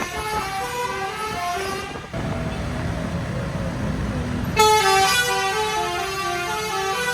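Bus's Basuri telolet horn playing a stepping multi-note melody, which breaks off about two seconds in, leaving the bus engine and road noise, then starts again loudly a little past halfway.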